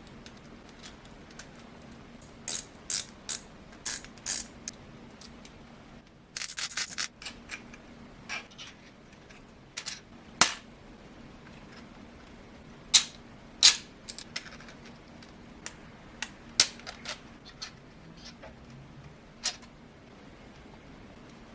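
Hard 3D-printed plastic parts clicking and snapping as they are handled and fitted together, with a brief rapid ratcheting rattle about six seconds in. A faint steady hum runs underneath.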